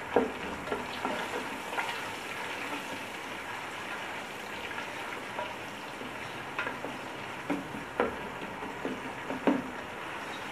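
Freshly added sliced onions sizzling in hot oil with whole spices in a nonstick pot, the first stage of frying them to golden brown. A slotted spatula stirs them, knocking and scraping against the pot about five times.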